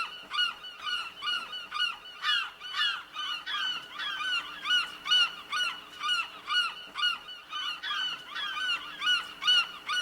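Gulls calling over and over, a steady run of short, nasal, curving calls at about two to three a second.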